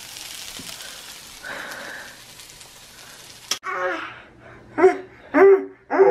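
Chorizo, sweet potatoes and peppers sizzling in a frying pan, cutting off suddenly about three and a half seconds in. Then a baby makes short voiced calls into a long tube, three of them loud near the end.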